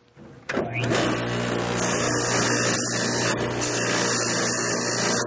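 Bench buffing machine switching on about half a second in and spinning up quickly. It then runs steadily with a low hum and a broad hiss as a soldered silver belt buckle is buffed on the wheel.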